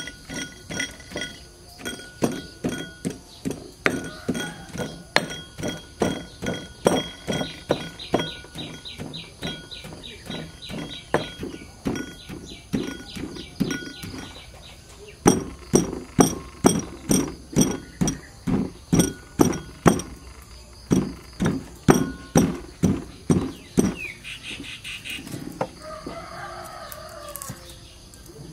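Stone pestle pounding in a heavy stone mortar, a steady thud about twice a second, then, after a short pause about halfway, a cleaver chopping on a wooden block in quick runs of strokes.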